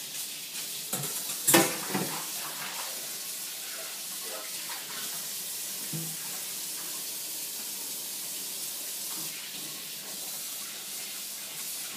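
Kitchen faucet running steadily into the sink while dishes are washed by hand, with a few knocks of dishes in the first two seconds, the loudest about one and a half seconds in, and one more about six seconds in.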